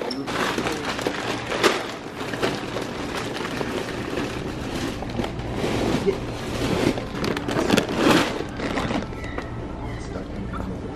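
Large plastic bags of dry dog food being pulled from a shelf and carried: crinkling, rustling plastic with the shifting of heavy bags. It is loudest about two seconds in and again around eight seconds.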